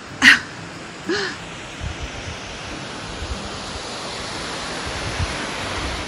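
Wind rushing and buffeting the microphone, a steady hiss that swells slightly toward the end. Two short exclamations from a person come near the start, the first the loudest.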